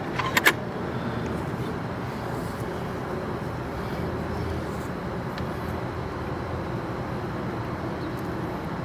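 Steady, even background rumble with no clear pitch, with a few light clicks right at the start.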